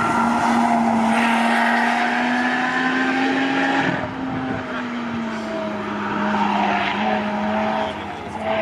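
A blue Lotus Exige sports car's engine pulling hard out of a corner at high revs, its note holding steady and rising slightly. About four seconds in, the engine note drops and grows quieter as the car draws away.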